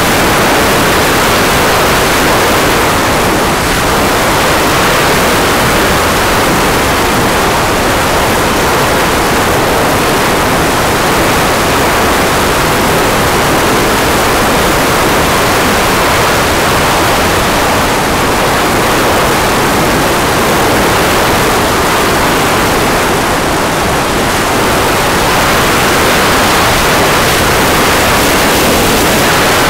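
Wind rushing over the onboard camera of an F-27 Evolution RC flying wing in flight: a loud, steady hiss with no distinct motor tone.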